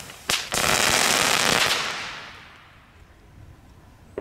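Two Nico XXL Crackling Balls going off together: a sharp crack, then a dense burst of rapid crackling for about a second and a half that fades away. A single pop at the very end.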